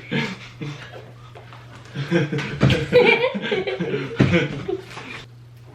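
Kids chuckling and laughing, with some low talk mixed in; the laughter picks up about two seconds in.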